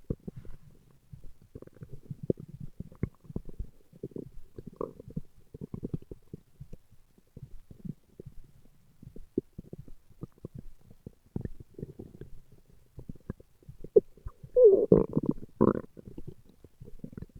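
Human stomach growling: scattered small gurgles and clicks, then a louder gurgling rumble about fifteen seconds in.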